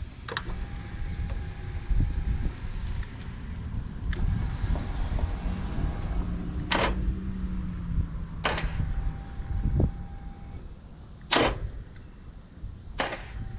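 Harley-Davidson Iron 1200 Sportster's electric starter turning the engine over in several tries of about two seconds each, with sharp clicks between them, and the engine never catches: the battery is run down.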